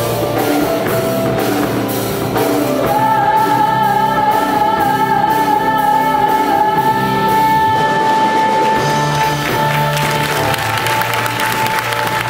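Music with a singing voice over instrumental accompaniment. From about three seconds in, the voice holds one long, slightly wavering note for several seconds.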